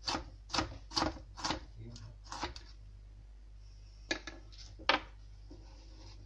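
Kitchen knife chopping red bell pepper on a cutting board: sharp taps about twice a second, a pause, then a few more taps later on.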